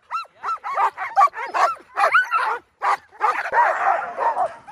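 Alaskan husky sled dogs in harness yipping and whining, a string of short rising-and-falling cries. About three seconds in, it thickens into an overlapping chorus of several dogs.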